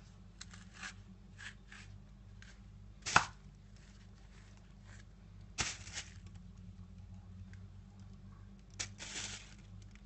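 Knife cutting a banana into chunks over the batter bowl: three louder sharp knocks about two and a half seconds apart, with fainter taps between.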